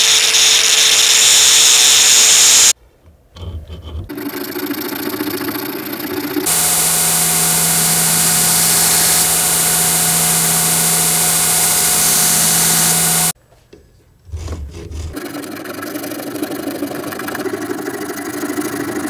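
Power grinder grinding metal, probably a copper blade collar (habaki): a steady motor hum under a loud grinding hiss, in two long stretches that each cut off abruptly. Between them and after, quieter rubbing of metal worked by hand.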